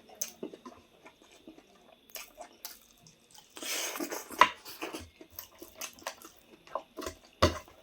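Eating sounds close to the microphone: chewing with scattered clicks and clinks of dishes or utensils. A denser, noisy stretch comes about three and a half seconds in, and sharp clicks come near the end.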